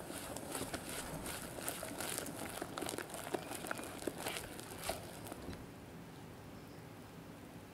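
Wire whisk stirring a thick batter of egg yolks, sugar and cake flour in a glass bowl: quick wet stirring with small clicks and scrapes of the wires against the glass. The strokes stop about five and a half seconds in.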